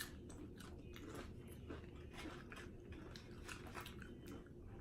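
Tortilla chips being bitten and chewed, a quiet run of irregular crunches close to the microphone.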